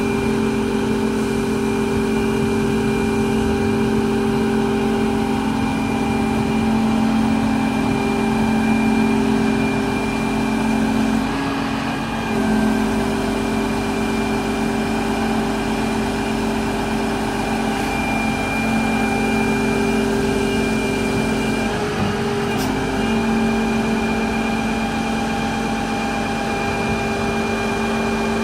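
Volvo EC300 excavator's diesel engine and hydraulics running steadily, with a thin high whine over the engine tone, while the cab is raised and tilted on its hydraulic arm. The tone shifts briefly twice, about twelve and twenty-two seconds in, as the hydraulic load changes.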